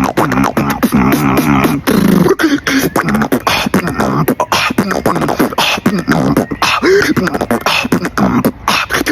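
Beatboxing: a fast run of mouth-made percussion with buzzing lip-roll passages. The pitched lip roll is most prominent in the first two seconds, then gives way to quicker clicks and snares broken by short rolls.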